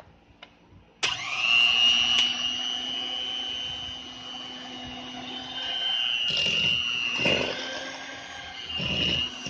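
Electric hand mixer switched on about a second in and running steadily with a high motor whine, its twin beaters churning flour into thick cake batter; the note shifts a little now and then as the load changes.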